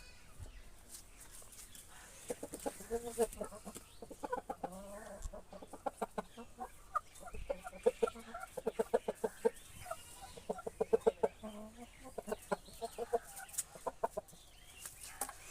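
Chickens clucking in quick runs of short notes, several birds together.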